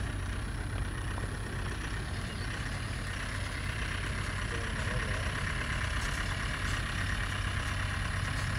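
Dump truck engine running steadily as the truck drives along a dirt track, a low even hum that grows a little louder as it comes closer.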